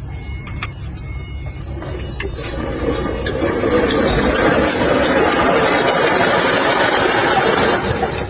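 Diesel engine of a water pump running, growing louder and fuller about two to three seconds in and holding steady.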